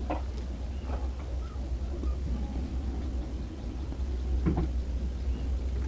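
Steady low hum with a few light clicks and taps as the small plastic parts of a neckband earbud are handled and glued.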